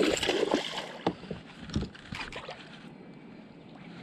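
A hooked smallmouth bass thrashing and splashing at the water's surface beside a boat, with one loud splash in the first second and a few briefer splashes after it.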